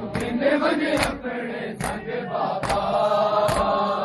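Shia mourners performing matam: men chanting a noha together while their hands strike their bare chests in unison, one sharp slap a little under every second, five times.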